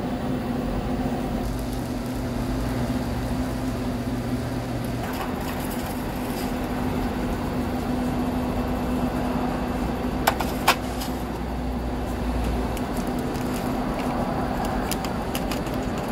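Instant ramen being unpacked into a foil tray over a steady machine hum: plastic wrapper crinkling, two sharp knocks about ten seconds in, and a seasoning packet rustling near the end.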